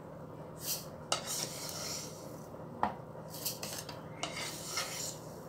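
Wooden spoon scraping and pushing toasted sesame seeds out of a bowl into a food processor bowl: several short rustling swishes as the seeds slide and pour, with a couple of sharp taps of the spoon against the bowl.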